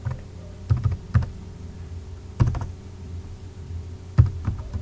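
Computer keyboard typing: a handful of separate keystrokes with pauses between them, some close together in quick pairs.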